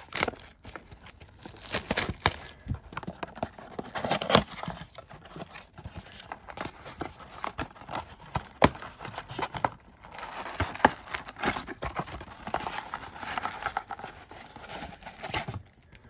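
A trading-card blaster box being torn open and its plastic-wrapped card packs handled and ripped: crinkling and tearing of wrapper and cardboard with many sharp snaps and clicks, and a longer run of steady crinkling about ten seconds in.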